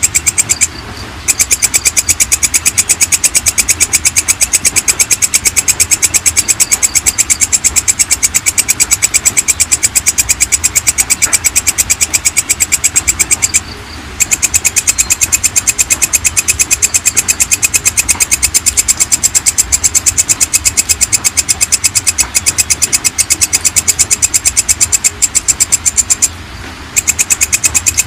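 Walang kecek katydid singing a fast, even train of rasping chirps. The song breaks off briefly three times: about a second in, around the middle, and near the end.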